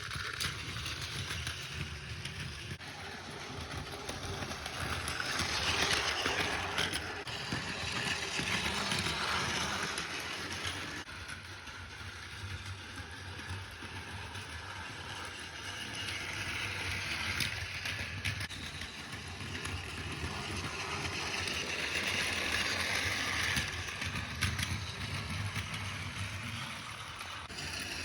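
Battery-powered Plarail toy train, the E8 Tsubasa set, running on plastic track: a steady motor-and-gear whirr with wheels rattling over the rail joints. It grows louder and fainter several times as the train circles past.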